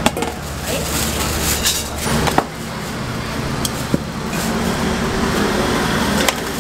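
Steady background din of a busy night-market food stall, with a low hum under it, broken by a few sharp clinks of steel kitchenware such as colanders, bowls and tongs.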